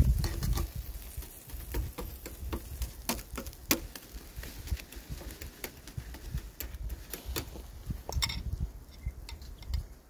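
Irregular sharp crackles and pops from a salmon fillet grilling in a wire basket over oak charcoal embers, with a low rumble at the start.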